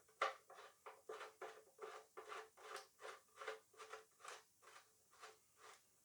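A faint series of short scraping or rubbing strokes, about three a second, growing weaker toward the end.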